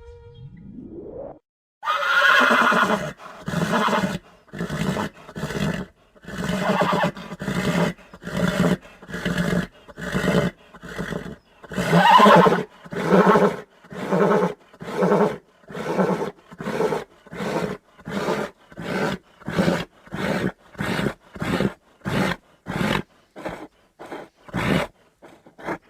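Horse neighing and whinnying: a long series of calls that get shorter and come faster toward the end, after a brief rising sound at the start.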